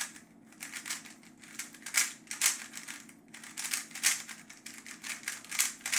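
Magnetic speed cube, GAN's Monster Go EDU, being turned by hand: an irregular run of sharp plastic clicks and clacks as the layers snap round.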